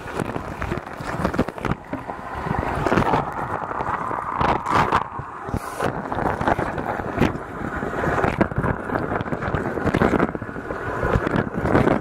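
A dishwasher's wash cycle heard from inside the tub through a waterproof camera: water jets spraying and splashing against the camera and racks, loud and churning, with frequent irregular knocks.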